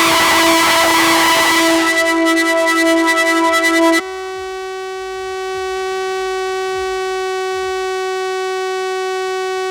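Analog synthesizer drone: a loud, buzzy held note with a pulsing wobble and noise, breaking into a rapid flutter, then about four seconds in it cuts suddenly to a single steady held tone rich in overtones that sustains unchanged.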